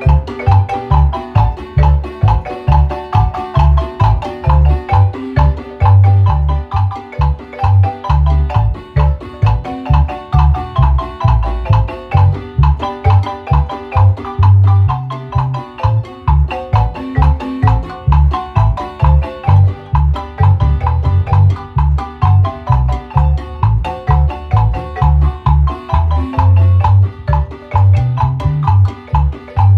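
Guatemalan marimba playing a lively tune: quick struck wooden notes carrying the melody over a deep bass line with a steady beat.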